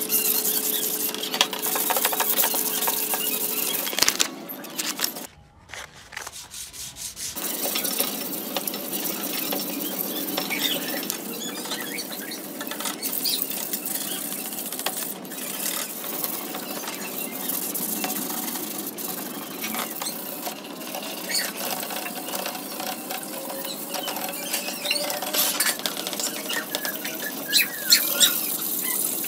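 Hand sanding and scraping of a disc player's plastic panels and sheet-metal chassis plate: a steady scratchy rubbing noise, with a brief quiet gap about six seconds in.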